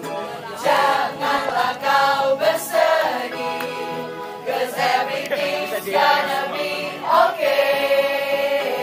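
A choir singing together, several voices holding long notes that change pitch every second or so.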